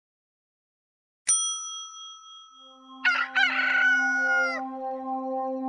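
A single bright bell-like ding about a second in, then, over a steady held low tone, a rooster crowing once: two quick notes and a long held one that drops off at the end.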